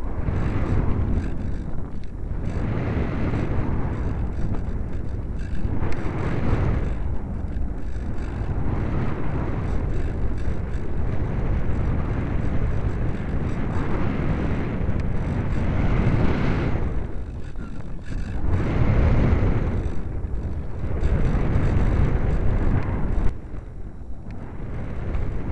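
Airflow buffeting the microphone of a small keychain camera riding on an electric RC plane in flight: a steady rumbling rush that swells and fades every few seconds. Near the end it gives a short sharp spike and then runs quieter.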